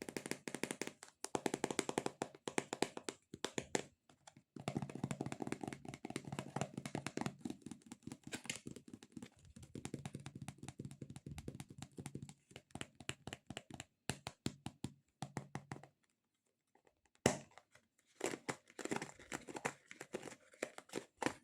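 Rapid fingertip tapping on sticky, squishy stress-relief toys, in quick runs of many taps a second. The tapping breaks off briefly twice and picks up again near the end with a sharp tap.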